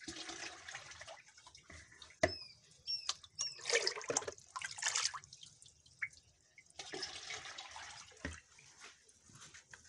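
Pond water draining down an earthen outlet channel, splashing and trickling in irregular bursts, with a few short high chirps about a quarter of the way in.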